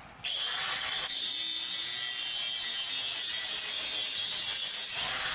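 A power cutting tool starts suddenly and runs steadily with a loud, high-pitched grinding whir as it cuts through a lock.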